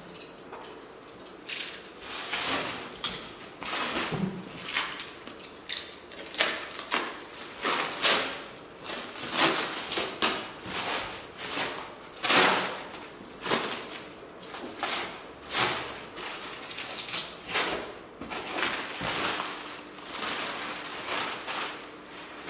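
Clear plastic wrapping being pulled and torn off a cardboard box, crinkling and rustling in quick irregular bursts.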